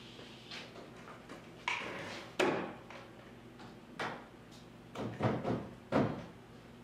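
Loose steel rear fender on a Triumph TR6 body being shifted and pressed by hand against the body for a trial fit: a string of separate knocks and clunks of sheet metal, with a short scrape. The loudest clunks come about two and a half and six seconds in.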